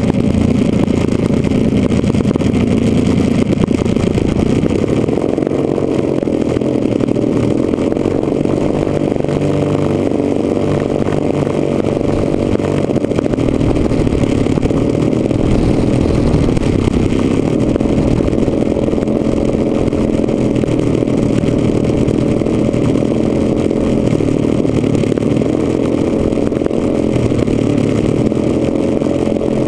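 Engine of a large radio-controlled B-26 Marauder model running steadily while it taxis, heard close up from the wing beside the engine nacelle.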